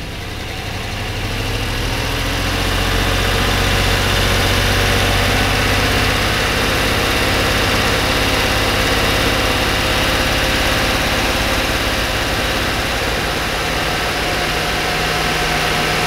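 1992 Corvette V8, which has a misfire, held at a fast idle by hand at the throttle. The engine speed rises over the first couple of seconds and then holds steady at around 3,000 rpm, so the exhaust gas heats the oxygen sensors.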